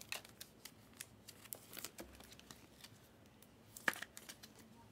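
Faint handling of trading cards: a few scattered soft clicks and rustles, the sharpest about four seconds in.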